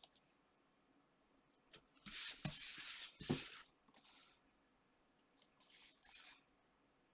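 Paper and card being handled and pressed together on a craft table: two short spells of rustling and sliding, the first about two seconds in with a couple of soft knocks, the second shorter, near the end.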